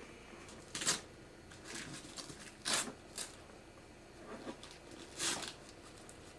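Christmas wrapping paper rustling and crinkling in about half a dozen short bursts as a gift is unwrapped and handled.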